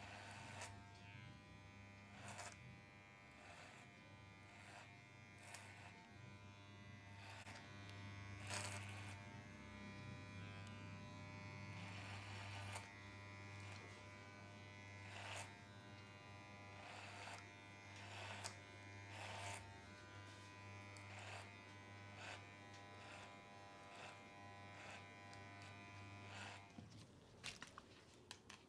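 Electric hair trimmer running with a faint, steady buzz, with brief scratchy strokes every second or two as it cuts hair. It switches off near the end.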